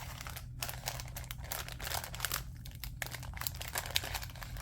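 Packaging of craft supplies crinkling and rustling in the hands as a bundle is pulled apart: a dense run of small crackles with a few brief pauses.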